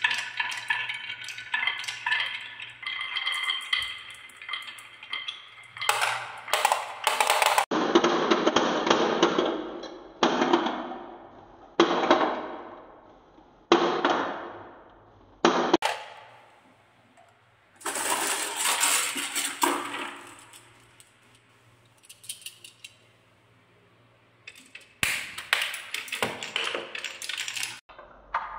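Glass marbles rolling and clicking along wooden marble-run tracks. Dense ringing clicks come first as marbles knock together on a wooden spiral. Then marbles roll one after another down a wavy wooden rail, each roll fading away, about five in a row, with a quieter stretch before more clatter near the end.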